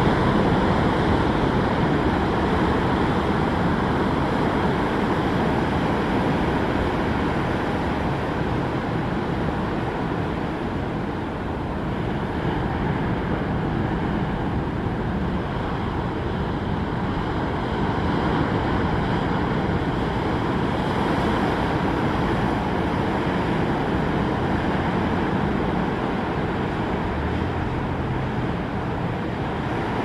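Steady rushing roar of ocean surf breaking along the beach, a constant wash of noise with no distinct events.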